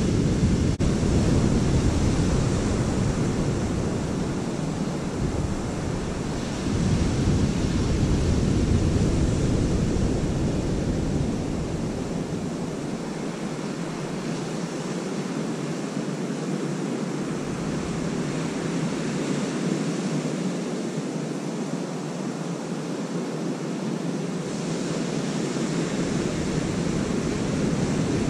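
Surf breaking on a sandy beach, a steady wash of waves that swells now and then, with wind buffeting the microphone that drops away about halfway through.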